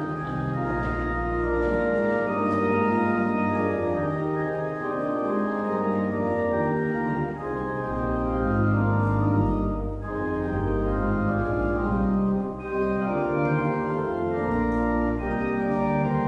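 Church organ playing slow sustained chords that change every second or so over low bass notes.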